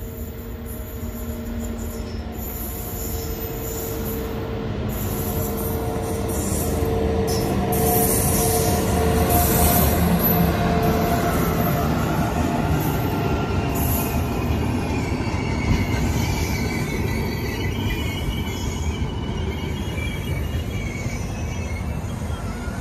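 WAP-7 electric locomotive hauling LHB coaches passing close by: a steady electrical hum that grows louder as it approaches, a heavy rumble as the locomotive goes past about halfway, then the coaches rolling by with a thin, high wheel squeal.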